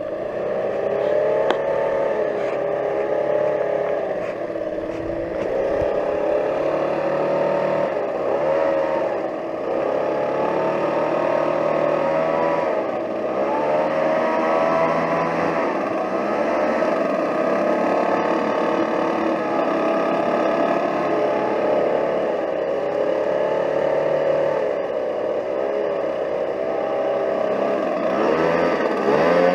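Gas-powered leaf blower running to clean up and fluff freshly laid pine straw, its engine pitch repeatedly dipping and rising as the throttle is worked.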